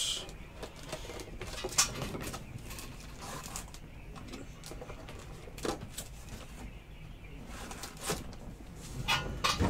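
Faint scattered clicks and light knocks of card supplies being handled and moved around while someone looks for a slider box, over a low steady room hum.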